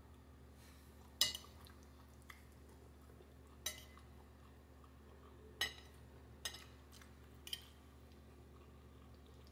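A metal fork clinking against a ceramic plate while gathering pasta: five sharp clinks spaced one to two seconds apart, over a low steady hum.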